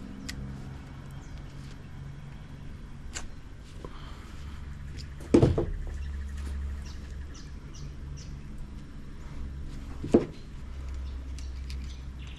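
Handling of a softened plug and metal tools at a work pot. Two heavy knocks, about five seconds apart, with a few lighter clicks and taps between them, over a steady low hum.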